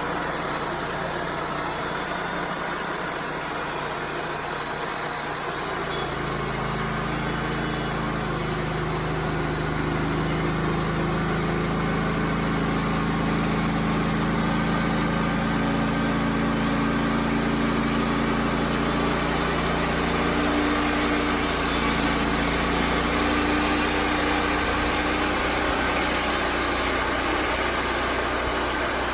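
Wood-Mizer LT35 sawmill running steadily. A deeper steady hum comes in about six seconds in and changes again after about twenty seconds.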